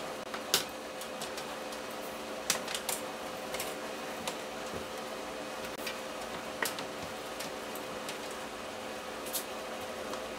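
An electrical cable and its plug being handled and laid across a steel table top, giving a few light scattered clicks and taps. A steady background hum runs underneath.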